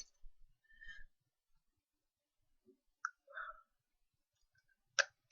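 Lego plastic pieces clicking as they are pried apart: a sharp click at the start and another near the end, with a few faint small sounds between.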